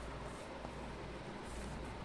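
Faint steady hiss and low hum of room noise, with a brief faint scrape about three-quarters of the way through.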